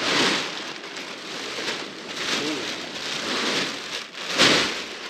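Black polyethylene plastic sheeting being handled and pulled about, rustling in repeated surges, loudest about four and a half seconds in.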